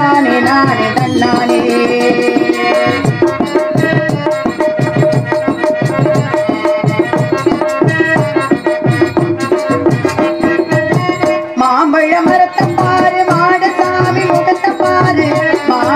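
A woman singing a Tamil song into a microphone, accompanied by steady, rhythmic tabla drumming, with a brief break just before 12 seconds.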